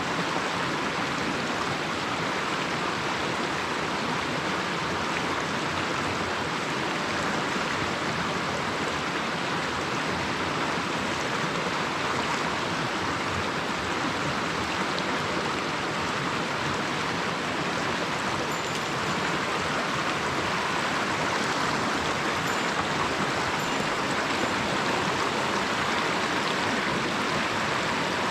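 A small mountain stream running steadily: an even, unbroken wash of flowing water.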